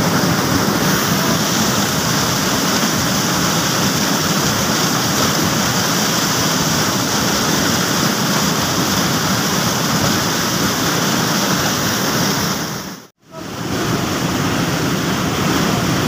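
Fast-flowing stream rushing over rocks: a loud, steady rush of water that cuts out briefly about thirteen seconds in.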